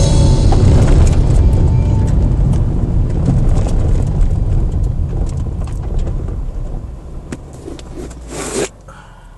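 Car tyres running on a loose gravel road, heard from inside the cabin: a low rumble with the crunch of gravel and sharp ticks of stones, growing steadily quieter as the car slows. A short louder scrape comes about eight and a half seconds in, then the sound drops away suddenly.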